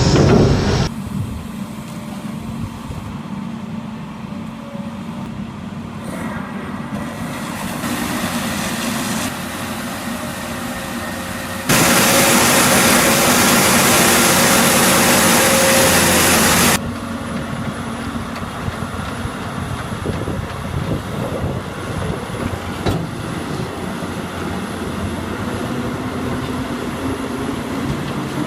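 Heavy machinery engines running steadily across several clips, with a loud even rush of noise lasting about five seconds in the middle.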